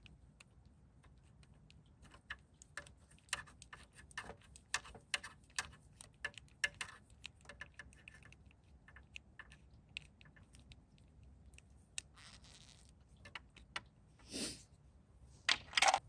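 Light clicks and taps of plastic and metal parts being handled during a motorcycle turn signal reinstall. Then a brief rustle and scrape, and a couple of louder clicks near the end.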